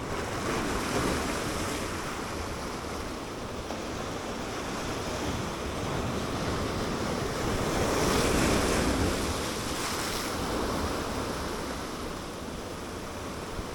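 Sea waves washing against shoreline rocks, with one surge building and falling away about eight seconds in, and wind buffeting the microphone.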